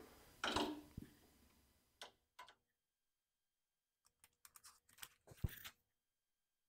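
Small metallic clicks and clinks of lathe change gears being handled and fitted on the end gear train while setting up for metric thread cutting. A louder clink comes about half a second in, then a pause, then a scatter of light clicks with a sharper knock about five and a half seconds in.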